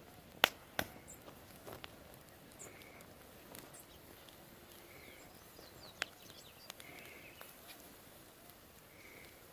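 Scattered sharp cracks and pops from cashew nuts roasting on an open wood fire, the loudest about half a second in, over a faint background. A short faint call recurs about every two seconds.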